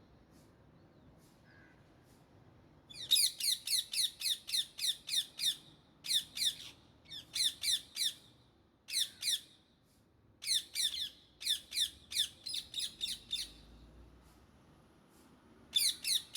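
Indian ringneck parrot squawking in bouts of rapid, evenly repeated harsh shrieks, several calls a second, starting about three seconds in and broken by short pauses.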